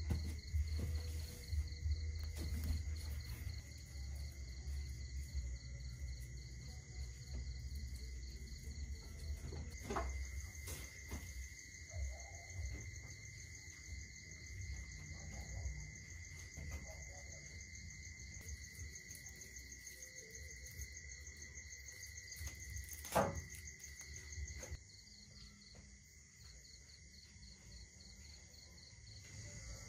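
Insects chirring steadily in several high, fast-pulsing trills. A low rumble runs under the first ten seconds or so, and there are two sharp knocks, one about ten seconds in and a louder one a little after twenty seconds.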